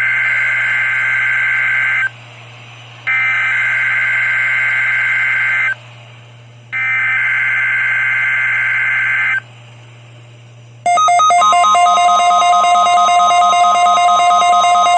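NOAA Weather Radio Specific Area Message Encoding (SAME) data header: three harsh two-tone data bursts of about two seconds each, a second apart. About eleven seconds in, a loud, steady, pulsing warning alarm tone begins. This is the alert signal of a required weekly test, which sets off weather alert radios.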